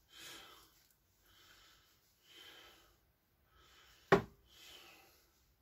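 A person breathing audibly close to the microphone, soft breaths coming in and out about once a second, with one sharp click about four seconds in.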